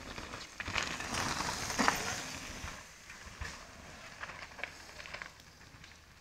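Downhill mountain bike tyres rolling and skidding over dirt and dry leaf litter, crackling, with small knocks from the bike. Loudest about one to two seconds in as the rider passes close, then fading as the riders move away down the trail.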